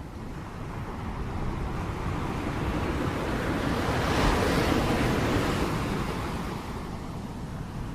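Rain noise, a steady rushing hiss that swells to its loudest about halfway through and then eases off again.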